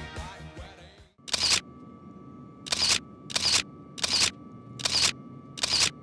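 Closing music fades out, then a single-lens reflex camera shutter fires six times at an uneven pace, each release a quick double click of mirror and shutter. A faint steady tone runs underneath the shots.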